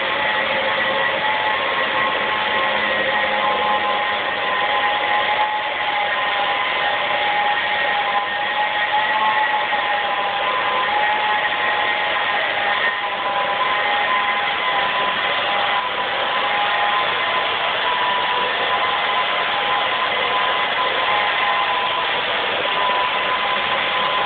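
Loud, steady machine noise with several held tones over a dense hiss, unchanging throughout.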